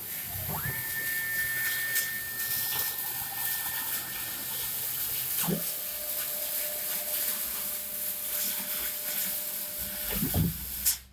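CNC gang-tool lathe cutting 304 stainless steel over a steady hiss. A steady high whine runs through the first half, then changes to a lower steady tone about halfway. There are low thuds at the change and again near the end.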